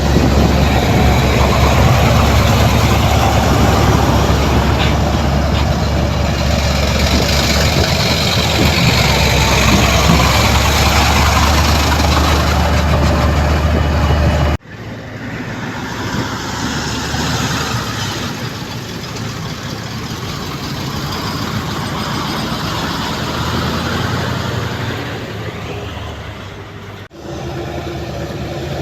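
Heavy earthmoving machinery engines running, from a bulldozer or dump trucks. The sound drops abruptly to a quieter engine about halfway through and changes abruptly again near the end.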